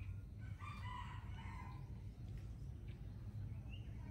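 A rooster crows once, a call of a little over a second starting about half a second in, over a steady low hum. A few short high chirps come near the end.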